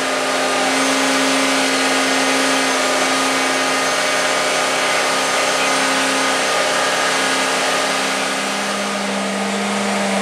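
The MegaBots Mk.III giant robot's power unit running: its LS3 V8 engine drives the hydraulic pumps that keep the system pressurised. It makes a loud, steady whine over a broad rushing noise, and the pitch drops slightly about eight seconds in.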